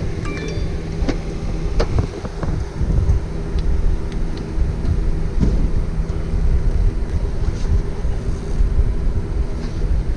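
Wind rumbling on the microphone over a steady mechanical hum, with a few light clicks and taps of parts being handled.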